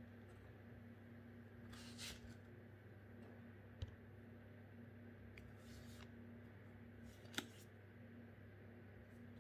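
Near silence with a faint steady hum, broken by a few soft clicks and swishes of foil trading cards being slid and shifted in the hand. The two sharpest clicks come about four and seven seconds in.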